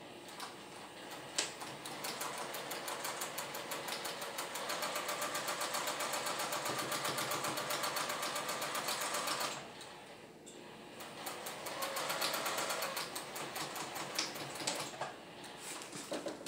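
Sewing machine stitching a quilt seam at a fast, even rhythm, picking up speed about four seconds in and stopping sharply near ten seconds, then a second, shorter run of stitching before it stops again near the end.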